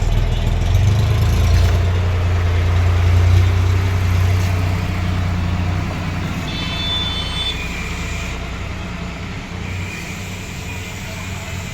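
A motor vehicle's engine running with a steady low hum. It is loudest in the first few seconds and gradually fades after about four seconds in.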